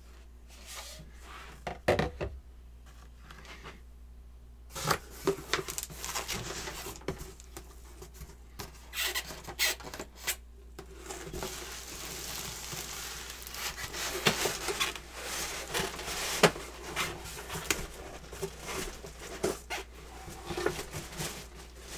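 Packaging being unpacked and handled: rustling and scraping with scattered clicks and knocks, one sharp knock about two seconds in, then a quiet spell before continuous rustling from about five seconds on.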